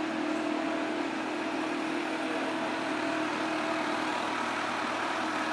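Kawasaki H2 SX's supercharged inline-four engine idling steadily.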